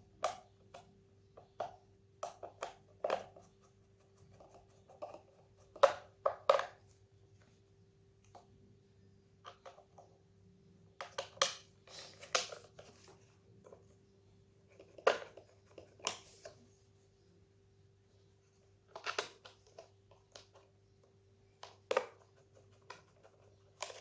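Irregular clicks and knocks of Dyson V6 cordless vacuum parts being handled and fitted together during reassembly, over a faint steady hum.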